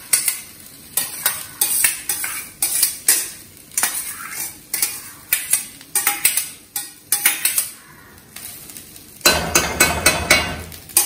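Perforated stainless-steel colander tapped repeatedly over a wok to knock boiled rice out of it, a sharp metal knock about twice a second. Near the end there is a louder clatter of metal lasting about two seconds.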